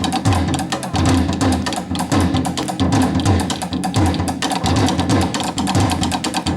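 Korean traditional percussion ensemble playing fast, dense rhythms, with the deep strokes of buk barrel drums under quick, continuous strikes.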